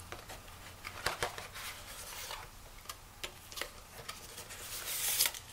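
Cardboard packaging being handled, with scattered light clicks and taps as the cardboard insert and plastic parts are moved on a table, and a short papery rustle near the end.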